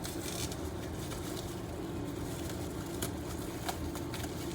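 Steady low background hum with a few faint, light clicks.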